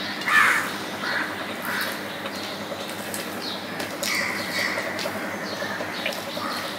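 Crows cawing, a run of short harsh calls with the loudest about half a second in and more around four seconds in, over soft sounds of fingers mixing rice and curry on a steel plate.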